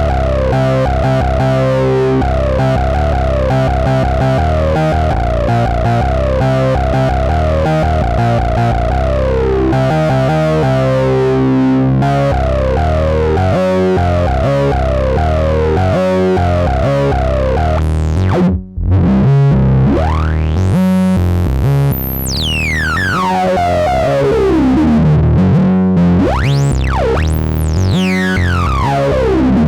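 Korg monologue monophonic analog synthesizer playing a factory preset: a rhythmic sequenced pattern of short repeated notes. About two-thirds of the way through it cuts out for an instant, then pitch sweeps glide up and down over the pattern.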